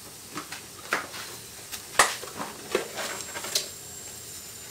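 Faint sizzle and crackle from green beans and minced garlic on a hot cast-iron grill pan with the burner off, with a few sharp ticks, the loudest about two seconds in.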